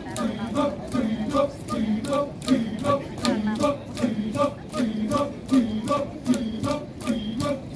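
Kecak chorus of men chanting the rapid, interlocking "cak" syllables a cappella in a steady rhythm, over sustained voices.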